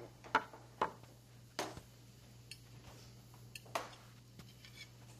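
Tableware at a meal: scattered clinks and knocks of glasses, dishes and cutlery, about half a dozen spread over a few seconds, over a faint steady low hum.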